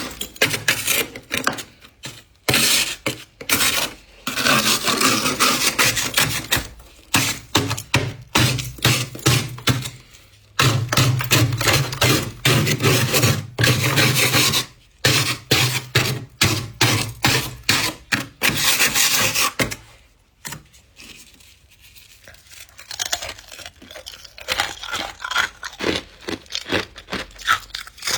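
A scraper scraping thick frost off the inside of a freezer in fast, repeated strokes, with a short lull about two-thirds of the way through before lighter scraping resumes.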